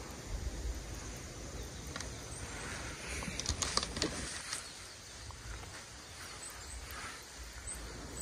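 Outdoor ambience by a pond: a steady low wind rumble on the microphone with a few faint, short, high bird chirps. About three seconds in there is a brief cluster of clicks and rustling.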